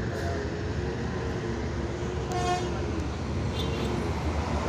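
Steady engine and road rumble of a moving road vehicle, with a short horn toot a little before halfway through.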